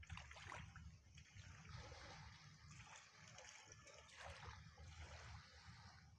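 Faint lapping of small waves at the water's edge, with a low rumble underneath.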